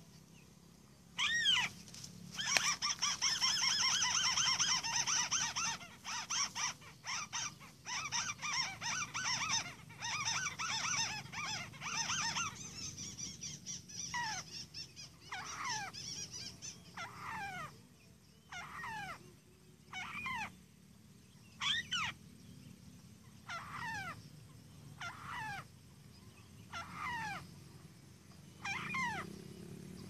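White-browed crake calling: one downward-slurred call, then about ten seconds of fast chattering, then single downward-slurred calls repeated every second or two.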